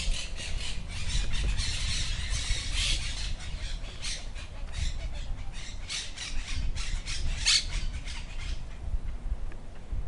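Birds calling in a flurry of short squawks and chirps, dense for the first few seconds and thinning out near the end, over a low steady rumble.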